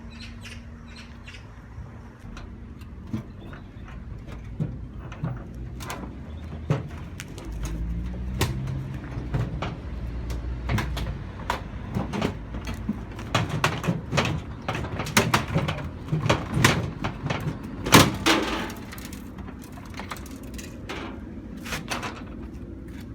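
Irregular knocks and clatter of hard plastic from the Casdon toy washing machine being knocked about, with a low rumble for a few seconds near the middle.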